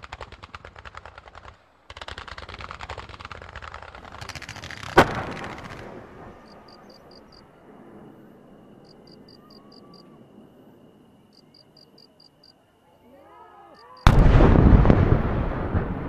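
Fireworks: rapid crackling volleys as rows of comets and mines fire in quick succession, then a single sharp bang about five seconds in. After a lull, an aerial shell bursts with a loud boom near the end, its rumble dying away.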